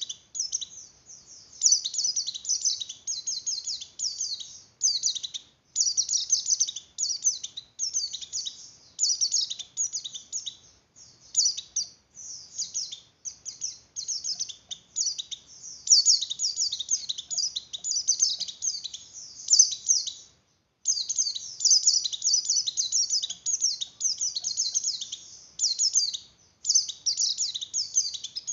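Pleci (white-eye) in breeding condition singing a fast, high twittering song: dense strings of quick chirps with only brief breaks between phrases.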